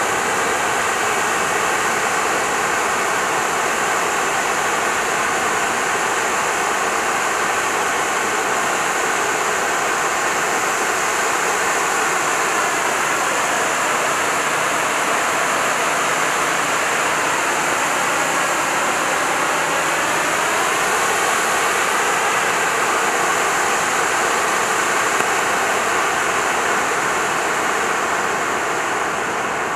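Black Cat Titanium Fountain ground firework burning, a steady loud rushing hiss as it sprays sparks. The hiss starts to fade near the end as the fountain burns down.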